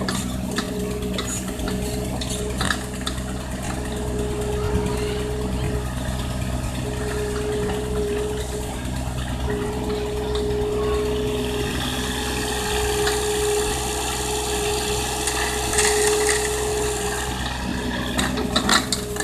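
Backhoe excavator's diesel engine running steadily, with a hydraulic whine that comes and goes as the machine works, and a few knocks, the loudest near the end.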